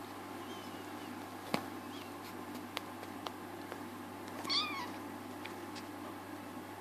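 A kitten gives one short mew about four and a half seconds in, during rough play. A few sharp clicks and faint thin squeaks come before it.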